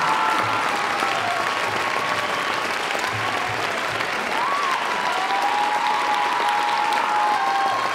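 Audience applauding steadily, a dense continuous clapping, with a few sustained music tones underneath.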